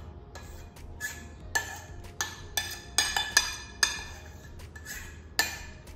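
Spoon scraping and tapping inside a stainless steel saucepan while thick white sauce is emptied into a stainless steel mixing bowl: a string of irregular metallic clinks and scrapes, some ringing briefly.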